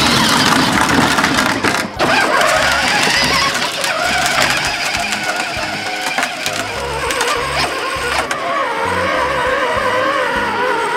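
Background music with a steady beat over the whirring electric motor and gearbox of a child's battery-powered ride-on toy car as it drives.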